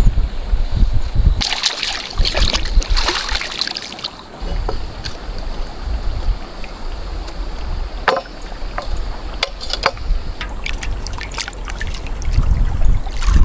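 Water sloshing and trickling over a steady low rumble, with a rustling scrape about two seconds in and scattered light clicks and knocks later on.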